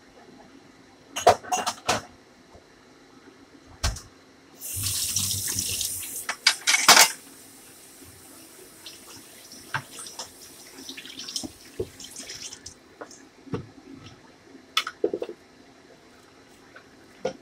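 Kitchen tap running briefly into a sink, with sharp knocks and clatter of a cutting board and utensils being handled before and after it, then softer water and handling noises.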